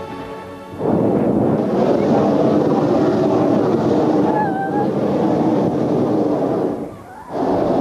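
Hot air balloon's propane burner firing: a long blast of about six seconds, then after a short break a second blast starts near the end.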